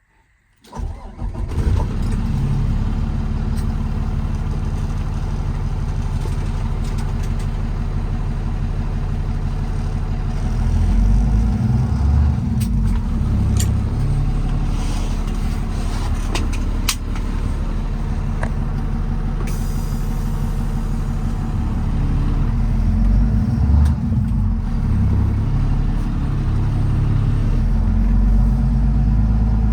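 Kenworth T370's PACCAR PX-6 six-cylinder diesel starting up just under a second in, then running steadily with a low, even rumble. A few sharp clicks are heard in the middle.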